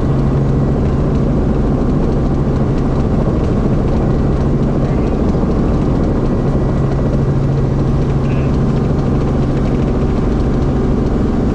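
Light helicopter's engine and rotor running steadily in low flight, heard inside the cockpit: a constant drone with a strong low hum under it.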